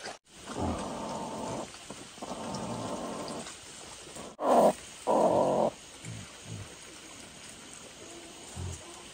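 A broody hen on her straw nest growls harshly in several rasping bursts, the loudest two a little past the middle. This is her defensive protest as her eggs are taken from under her.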